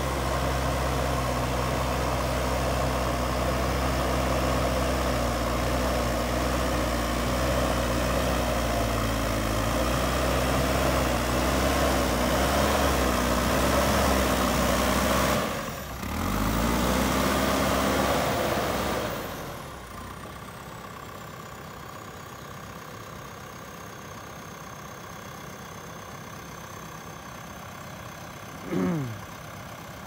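JCB 3DX Super backhoe loader's diesel engine running while it works soil, its pitch wavering up and down. The sound breaks off briefly about halfway through and comes back. A few seconds later it drops to a much quieter steady hum with a thin high whine, and a short sound falling fast in pitch comes near the end.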